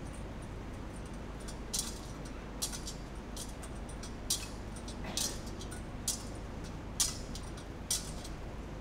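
Metal thurible (censer) swung on its chains, clinking sharply about once a second as the Gospel book is incensed before the Gospel reading.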